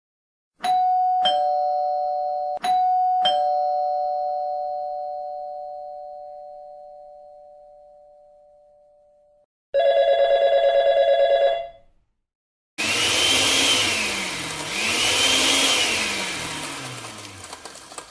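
A two-tone ding-dong doorbell chime rung twice, each high-then-low pair ringing out and slowly fading. Then comes a pulsing electronic ring for about two seconds, and then a blender motor running loudly, its pitch rising and falling twice.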